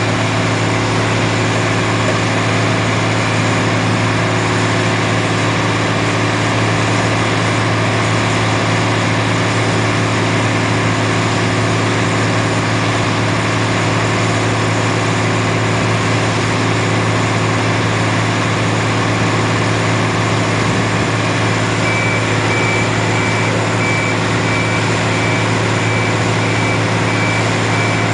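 Heavy diesel site machinery, a piling rig's hydraulic power pack and crawler crane, running steadily at a constant speed with a deep drone. In the last several seconds a reversing alarm beeps steadily over it.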